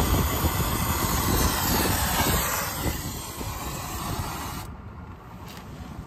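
Brazing torch flame hissing steadily while it heats a brazed copper joint to free it. The hiss cuts off sharply about three-quarters of the way in.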